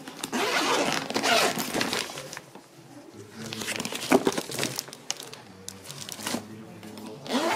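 A nylon cooler bag rustling and plastic food bags crinkling as a hand rummages through it, with the loudest rustling in the first couple of seconds and a single sharp knock about four seconds in.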